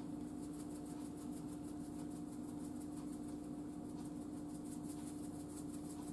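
Steady hum with one strong held low tone and a fainter higher one, unchanging in level throughout.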